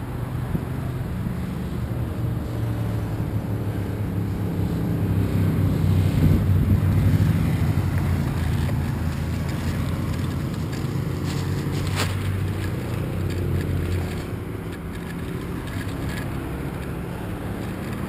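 Road traffic passing: a motor vehicle's engine hum swells to its loudest about six seconds in, then fades, over wind noise on the microphone. A single sharp click about twelve seconds in.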